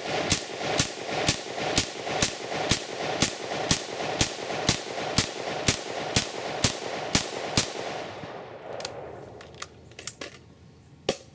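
Semi-automatic FG42 replica rifle in 8mm Mauser firing Romanian steel-case surplus ammo: about sixteen shots at an even, rapid pace of about two a second, with no stoppage, then the echo fades. A few metallic clicks follow as the rifle is handled, the last one sharper, near the end.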